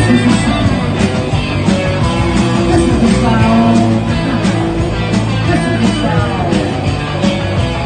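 Live punk rock band playing an instrumental passage: electric guitars and bass over a steady drum beat.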